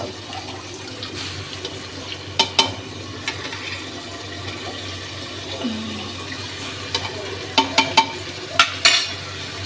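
Soaked rice being scooped with a steel ladle from a steel bowl and tipped into a pressure cooker of fried masala: wet, squelching scoops of rice, with sharp clinks of the ladle against the metal, a couple about two and a half seconds in and a run of them near the end.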